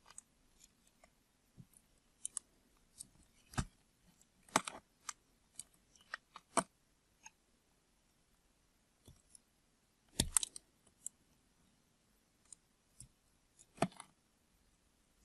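Soap being cut into cubes with a blade: irregular crisp clicks and snaps, with a handful of louder cuts among many faint ticks.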